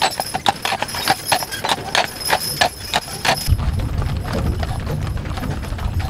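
Shod horse hooves clip-clopping on a paved road, sharp and even at about five strikes a second. A little over halfway through, the hoofbeats turn softer and a steady low rumble comes up under them.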